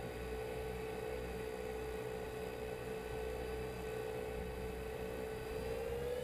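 3DR Solo quadcopter's motors and propellers spinning at idle on the ground, a steady whine whose pitch begins to rise near the end as throttle comes up for takeoff. Wind rumbles low on the microphone.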